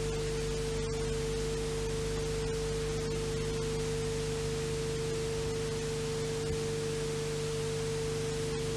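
Steady hiss with a constant mid-pitched hum tone under it, unchanging throughout: noise on an old videotape recording rather than any sound from the road scene.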